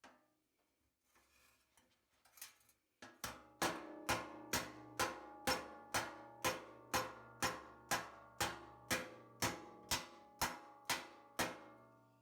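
A hammer striking sheet-steel body panel in a steady rhythm of about two ringing blows a second, starting about three seconds in, after a few faint clicks and handling noises.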